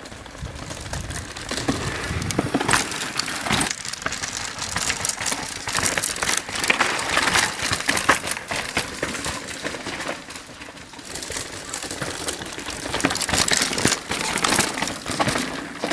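Downhill mountain bikes ridden over a rocky trail: tyres crunching and clattering over stones and gravel, with the bikes rattling. It makes a dense crackle of clicks and knocks that swells and fades as riders come past.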